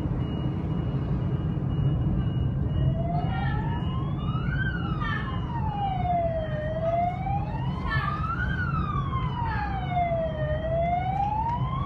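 Emergency-vehicle siren wailing, its pitch slowly rising and falling about every four seconds, starting a few seconds in, over a steady low rumble.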